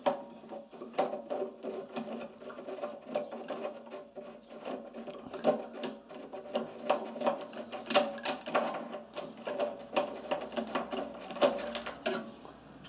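Spark plug being unscrewed from a Honda GX-series engine's cylinder head with a 21 mm socket on an extension: irregular metal clicks and rattling of the socket and tool as they are turned.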